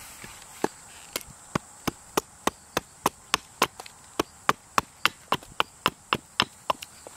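Hatchet chopping a wooden spoon blank braced against a log: a quick, even run of about twenty short, sharp wooden chops, roughly three a second, loudest in the middle of the run.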